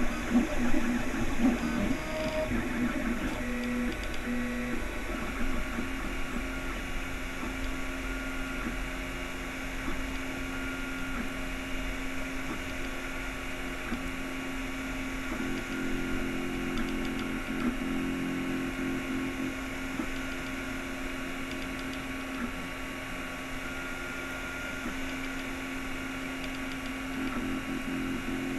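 Anet A8 3D printer at work: its stepper motors whine in steady tones that shift and switch as the print head changes direction, over a steady hum. It is printing the first layer onto blue tape.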